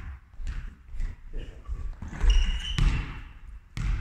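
Volleyball thuds and bounces on a sports-hall floor, echoing in the large hall. A short high squeak, like a sneaker on the court, comes a little past halfway.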